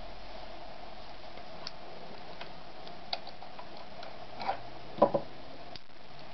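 Privileg TopStar 796 sewing machine with a steady faint hum and scattered mechanical clicks. The loudest is a quick double click about five seconds in, and the hum cuts out briefly near the end.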